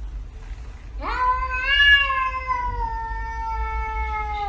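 Domestic tabby cat giving one long, drawn-out yowl that rises sharply at first, then holds and slowly sinks in pitch before being cut off abruptly. It is a defensive warning yowl at another cat.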